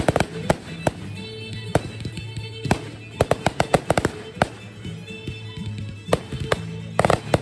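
Aerial fireworks bursting: a string of sharp bangs, with a quick run of cracks about three seconds in and another cluster near the end, over music playing throughout.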